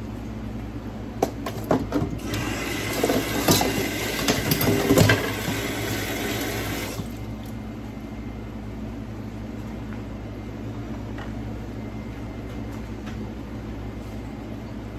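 Water running or pouring for about five seconds, starting about two seconds in, with a few knocks and clatters, over a steady low kitchen hum.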